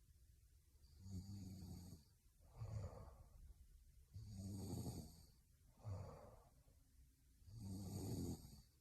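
A woman snoring in her sleep: three low, buzzing snores about three seconds apart, each followed by a softer breath out.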